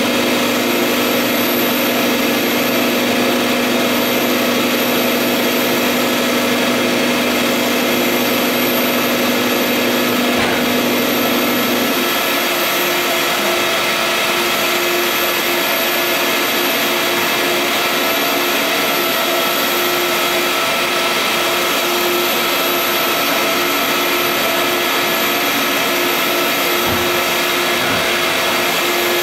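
Vutek UV-curable flatbed printer running: a loud, steady machine whir with several steady hums, the lowest of which stop about twelve seconds in.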